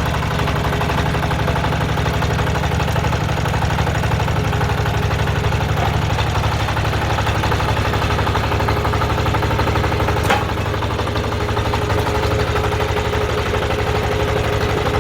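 Walking tractor's single-cylinder diesel engine running steadily at idle, with one sharp knock about ten seconds in, after which the engine note drops slightly.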